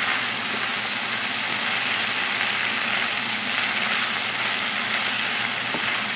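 Tofu cubes, oyster mushrooms and onions sizzling steadily in a hot nonstick frying pan as they are stirred with a wooden spatula.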